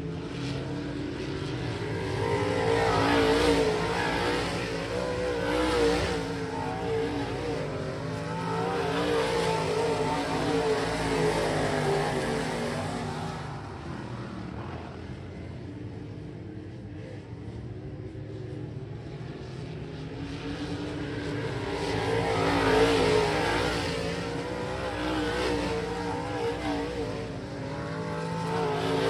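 A field of dirt-track modified race cars running laps, their V8 engines going up and down in pitch as the drivers get on and off the throttle. The sound swells as the pack comes past, loudest around three to six seconds in and again a little after twenty seconds, and falls away in between as the cars go to the far side of the track.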